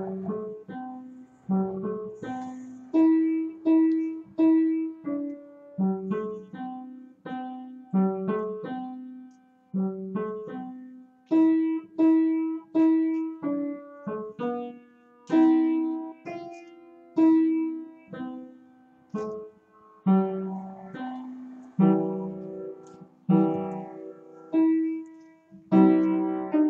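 Piano played solo: an unhurried melody of single struck notes and chords, each ringing and then fading.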